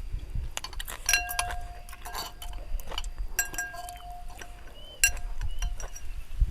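Eating utensils clinking against a bowl several times while eating noodle soup; two of the strikes, about a second in and around three and a half seconds in, ring on with a clear bell-like tone.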